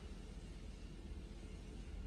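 Quiet room tone: a faint, steady low hum with a light hiss and no distinct sounds.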